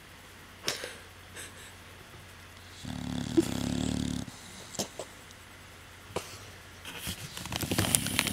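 A dog snoring: one long, low snore about three seconds in, then a second, rougher snore near the end, with a few light clicks in between.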